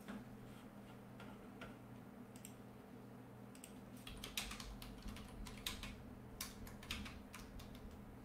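Faint, irregular clicking like typing on a computer keyboard, sparse at first and quicker from about four seconds in, over a low steady hum.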